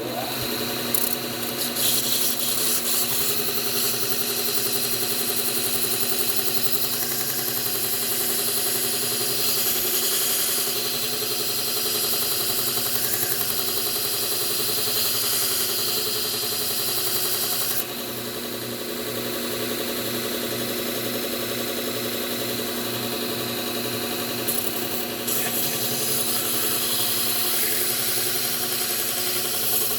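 Bucktool slow-speed belt sharpener running steadily, its motor hum under the hiss of a 600-grit Trizact belt grinding a pruner blade. The high hiss eases off for several seconds past the middle and then returns.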